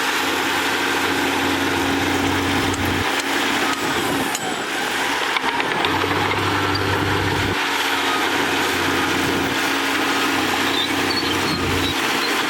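Diesel engines of heavy earthmoving machinery (bulldozers and a dump truck) running, with a steady low engine note that shifts in strength every few seconds.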